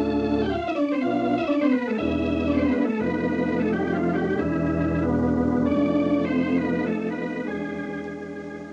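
Organ music bridge between scenes: held chords with a falling run in the first two seconds, then fading away toward the end.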